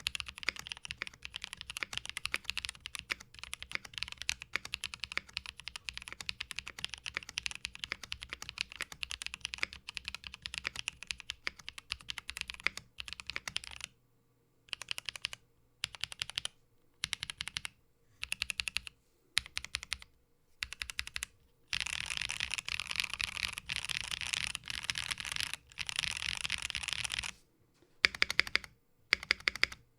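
Typing on a Blade60 mechanical keyboard with Technoviolets linear switches, a PC plate and GMK keycaps. There is steady fast typing for about thirteen seconds, then short bursts of keystrokes with pauses between them. After that comes a longer run of fast typing, and a few louder single strokes near the end.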